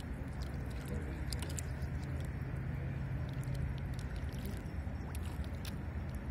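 Steady low rumble with a faint even hum beneath it and a few faint ticks.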